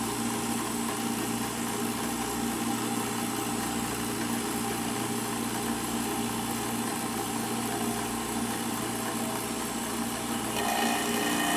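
Milling machine running with an end mill on a slow final cut through the wall of a tube: a steady motor hum with a constant cutting noise. Near the end the sound changes, a new higher tone coming in and growing a little louder.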